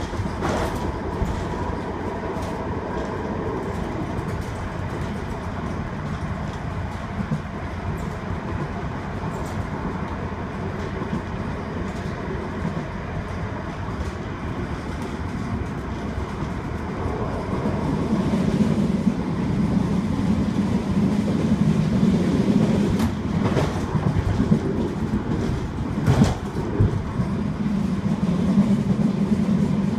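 Running noise of a Manchester Metrolink M5000 tram heard from inside the passenger car: a steady rumble of wheels on rails that grows louder about two thirds of the way through, with two sharp knocks near the end.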